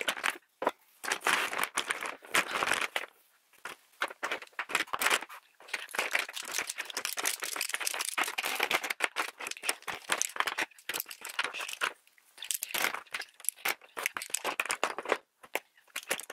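A pile of makeup brushes being sorted by hand on a tabletop: handles and metal ferrules clicking and clattering against each other and the table in quick bursts with short pauses.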